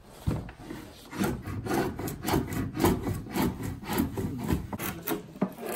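Hand-pulled edge tool shaving the face of a split wooden board, in quick repeated scraping strokes about two or three a second.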